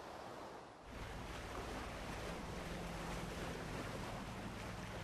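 Steady rushing noise with a low hum under it, starting about a second in, from the worn soundtrack of an old film over footage of a battleship at sea.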